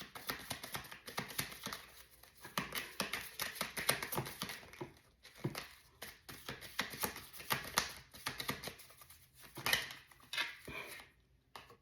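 A deck of tarot cards being shuffled by hand: dense runs of soft clicks and snaps in several bursts, broken by short pauses.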